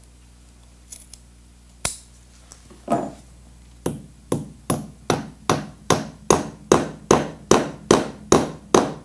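Upholstery hammer driving decorative dome-head nails through the leather edge into a wooden chair frame. A few scattered taps come first, then a steady run of about a dozen strikes, roughly two and a half a second.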